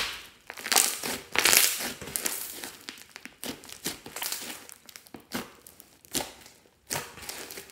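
Hands kneading and squeezing a big mass of pink slime mixed with small beads: squishing and crackling in irregular bursts, with sharp clicks and pops.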